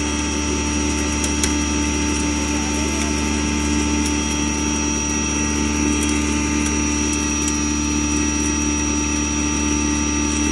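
Stoneless double-chamber maize grinder machine running steadily: an even, loud machine hum with a constant high whine and scattered light clicks.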